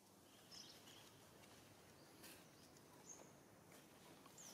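Near silence: quiet outdoor background with a few faint, short high chirps.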